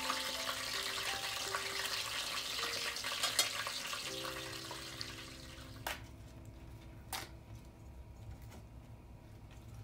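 Hot oil sizzling as battered chicken pieces deep-fry in a small pot, fading out about five seconds in. Two sharp taps follow, about six and seven seconds in.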